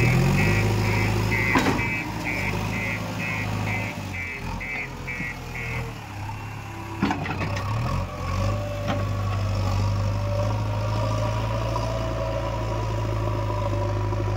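Backhoe loader's diesel engine running steadily, with a reversing alarm beeping about twice a second for the first six seconds. Two sharp knocks stand out, one early and one about seven seconds in.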